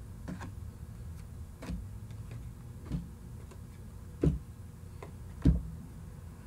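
A deck of tarot cards being shuffled and handled by hand: soft, irregular clicks and taps of the cards, with two louder knocks in the second half, over a low steady hum.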